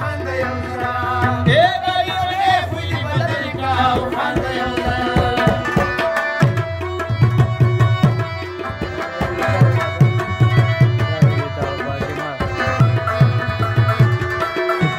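Pashto folk music: a rabab plucking a busy melody over held harmonium tones and steady drum beats. A sung line trails off in the first three seconds, leaving the instruments playing on their own.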